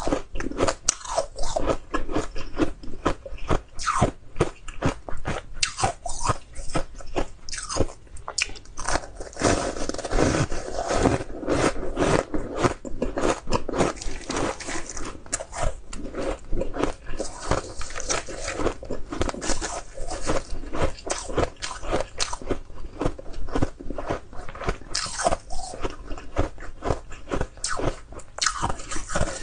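Purple-flavoured frozen ice being bitten and chewed, a steady run of many sharp, rapid crunches as the frosty, powdery ice breaks up in the mouth.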